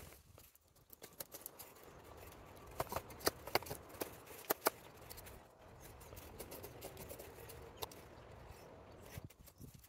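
Whittling knife slicing shavings off a small piece of Christmas-tree wood: a series of short, sharp, irregular cuts, busiest a few seconds in.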